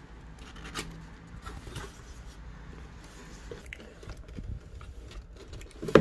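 Toy figure packaging being handled and opened: scattered rustles and light taps of cardboard and plastic, with a sharp louder knock at the very end.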